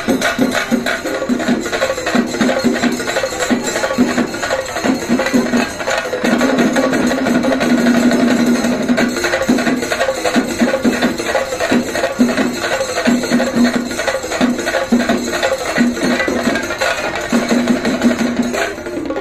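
Sufi dance music: a fast, steady percussion beat under a held, wavering melody line.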